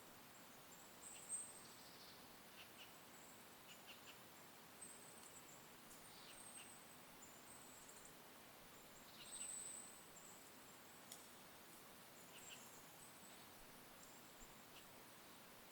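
Faint, scattered high chirps and short calls of small songbirds over a near-silent forest background. The loudest comes about a second in, and a short run of calls comes around two-thirds of the way through.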